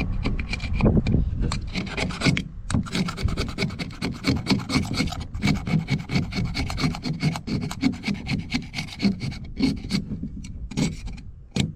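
Hand tool scraping old, stuck-on seal material off a cap in quick, repeated rasping strokes.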